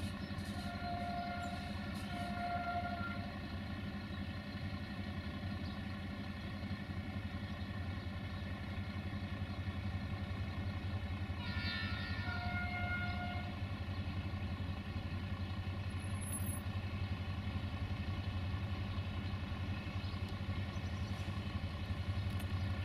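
Diesel locomotive hauling a passenger train, its engine a steady low drone that grows slightly louder as the train approaches. A few short higher tones sound about a second in and again around twelve seconds in.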